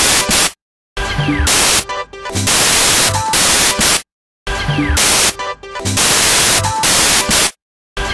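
Loud electronic background music built from harsh static-like noise bursts and short tones, a looped pattern that repeats about every three and a half seconds and drops out completely for a moment three times.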